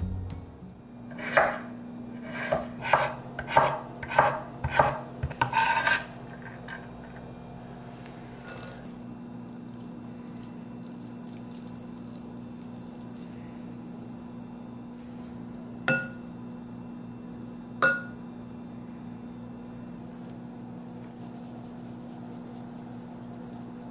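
Knife chopping on a cutting board, about seven uneven strokes over the first six seconds. Then a steady low hum, with two sharp clinks about two seconds apart in the middle.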